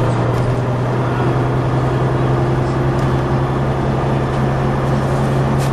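MCW Metrobus's Gardner diesel engine running with a steady low drone, its pitch edging up slightly over the first couple of seconds.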